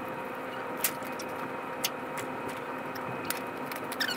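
Steady hum of an idling engine, with a few sharp clicks from the strap work over it.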